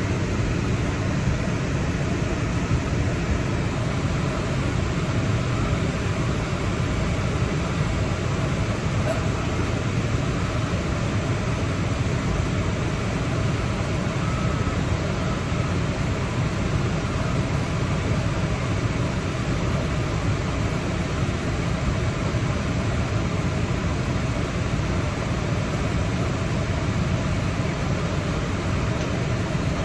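Steady low rumble of car noise heard inside the cabin, even throughout with no distinct events.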